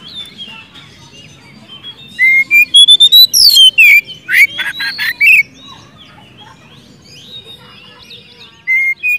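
Oriental magpie-robin singing loudly, a fast string of whistled notes sliding up and down mixed with harsh rasping notes. The loudest burst comes about two seconds in and lasts some three seconds; softer chatter follows, then another loud phrase near the end.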